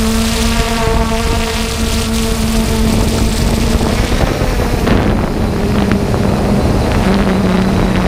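3DR Solo quadcopter's motors and propellers humming steadily, picked up by its onboard camera, with wind rushing over the microphone. About halfway the hum drops a little in pitch and wavers, and the wind noise grows.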